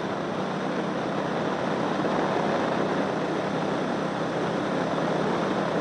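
Motorcycle cruising at a steady speed: a steady rush of wind and road noise over the microphone, with the engine's low drone underneath.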